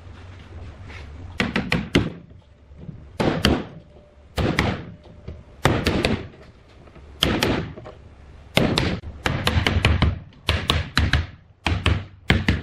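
Hammer blows on wood: sharp knocks in quick clusters of two to four, repeating every second or so.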